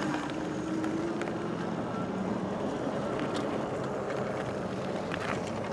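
Steady road and wind noise from riding an e-bike, with a faint held hum in the first second or so and a few light clicks.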